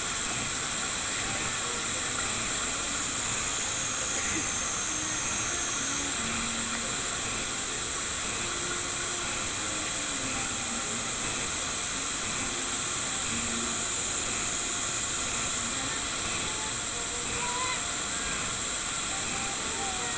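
A steady, high-pitched hiss that does not change, with faint scattered voices beneath it.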